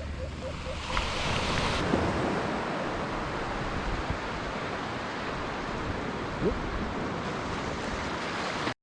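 Surf washing onto a beach: a steady rush of breaking waves, with wind buffeting the microphone. It cuts off suddenly at the very end.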